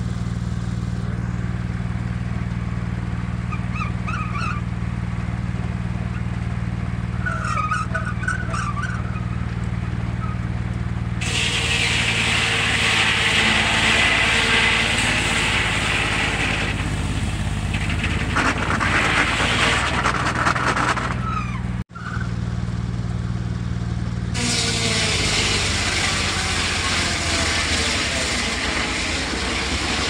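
Old Belsaw circular sawmill running off a tractor's PTO, the engine holding a steady drone throughout. About eleven seconds in, the blade starts cutting through a log with a loud hissing whine, which stops around twenty-two seconds and picks up again a couple of seconds later.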